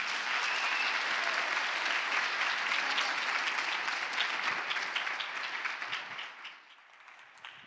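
Audience applause, a dense steady patter of clapping hands, tapering off and dying away about six and a half seconds in.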